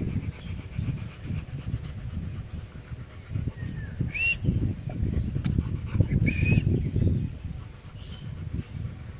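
A Rottweiler panting in quick, irregular breaths. Two short bird chirps come about four and six and a half seconds in.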